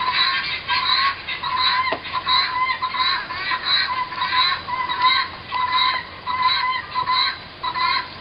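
Guinea fowl flock calling nonstop: a harsh, rhythmic chatter of overlapping calls, about two or three a second.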